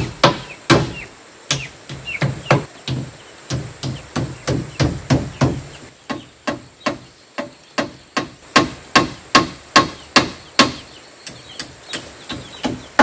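Hammer blows on the wooden roof frame of a plank chicken coop as a tarpaulin roof is fixed down: a steady run of sharp knocks, about two to three a second, softer for a couple of seconds in the middle.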